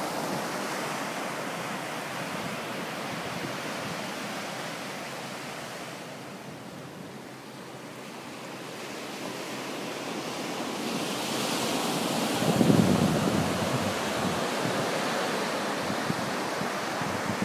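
Ocean surf washing onto a sandy beach: a steady hiss of breaking waves that eases off about a third of the way through, then builds again to its loudest a little past two-thirds of the way. Wind rumbles on the microphone.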